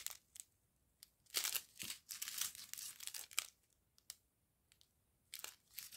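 Small plastic bags of round diamond-painting drills crinkling as they are handled, in faint, irregular rustles with short pauses between.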